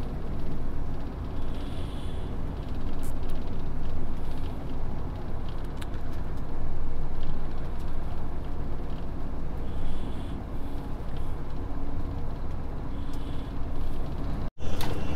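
Steady engine and road noise of a truck driving along, with a brief total dropout near the end.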